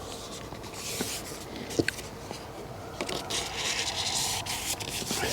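Rubbing and scraping of fishing tackle being handled, with a few light clicks: a short scrape about a second in, then a longer stretch of rubbing from about three seconds in.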